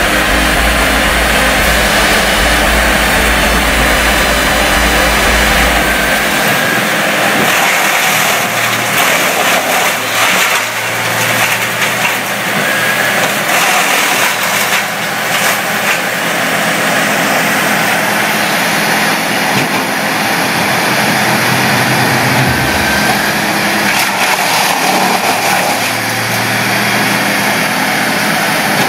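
Bandit wood chipper running loud and steady at working speed while branches are fed in, with scattered crackling as wood passes through. A deep low rumble drops away about six seconds in.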